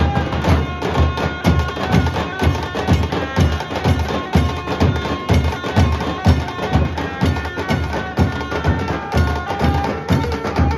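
Nasik dhol troupe playing: a row of large barrel dhols beaten with sticks in a loud, driving rhythm, several strokes a second, with a melody held over the drums.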